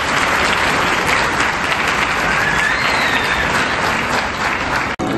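Large audience applauding: the steady patter of many hands clapping at once.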